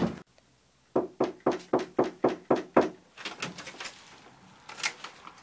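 A quick run of eight knocks on a wooden door, about four a second, followed by lighter clicks and a short rattle as the door's handle and latch are worked and the door opens.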